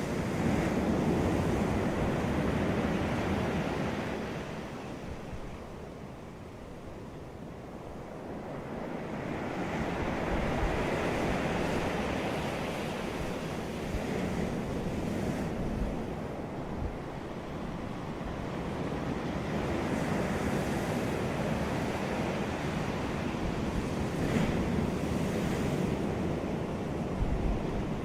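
Ocean waves breaking and washing up a beach, the surf swelling and ebbing over several seconds at a time, with a little wind rumble on the microphone.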